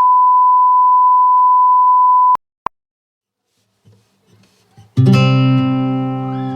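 A loud, steady, single-pitch beep tone for about two and a half seconds, a short blip of the same tone, then after a pause a strummed acoustic guitar chord that rings out and slowly fades near the end.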